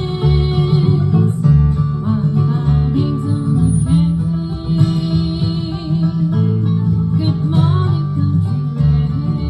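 Acoustic string band playing live, with strummed acoustic guitar and upright bass.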